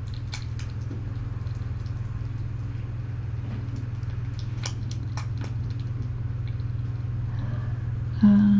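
Faint, scattered clicks of typing on a laptop keyboard over a steady low hum. A short, loud, low-pitched sound with a steady pitch comes near the end.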